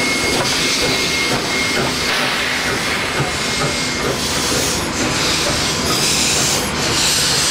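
NSWGR 32 class steam locomotive 3237 passing slowly at close range, hissing steadily from steam escaping low around its cylinders, with a few louder surges of hiss in the second half and rail rumble from the train.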